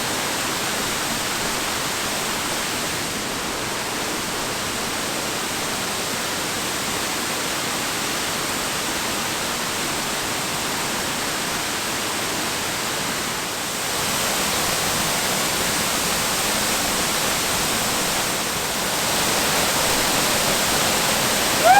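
Long Creek Falls, a waterfall, rushing steadily. It grows a little louder about two-thirds of the way through and again near the end.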